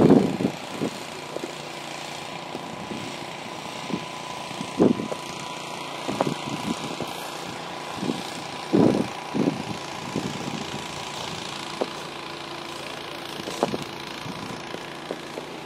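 A steady motor drone, with irregular short thumps and scuffs over it, the loudest near the start and about 5 and 9 seconds in.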